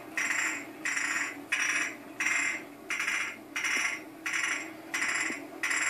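Glass bottles held on the fingers of one hand, clinked together in a steady rhythm, a ringing clink about three times every two seconds.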